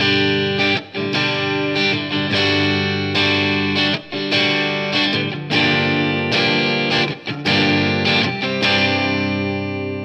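Electric guitar, a PRS CE24 on its Gibson 57 Classic neck humbucker switched to parallel, strummed in chords that are struck again about once a second and left to ring. The last chord fades near the end.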